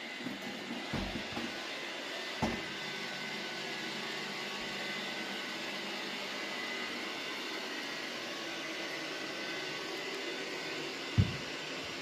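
Robot vacuum running with a steady whirring hum. A few dull low thumps break in, twice early on and loudest once near the end.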